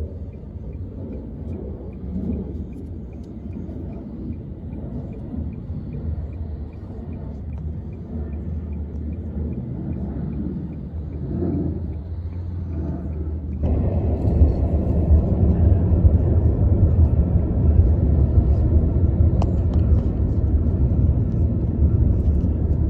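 Steady low vehicle rumble. It jumps suddenly louder about two-thirds of the way through and stays there.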